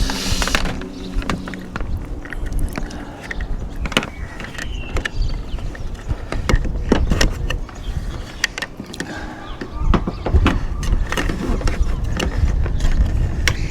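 Solar cables being handled and fed through a van-roof cable gland: irregular clicks, knocks and rustles over a low, uneven rumble.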